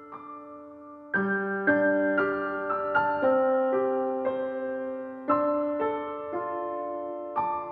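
Piano music from a keyboard instrumental passage: after a quiet first second, notes and chords are struck one after another, each ringing out and fading.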